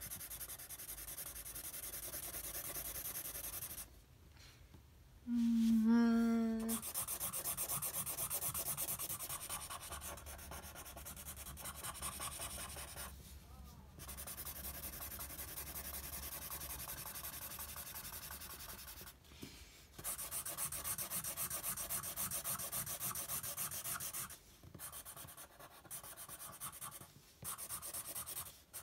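Felt-tip marker nib scratching over paper in quick back-and-forth strokes, filling in a large black area, stopping and starting now and then. About five seconds in, a short low pitched sound lasting about a second is the loudest thing heard.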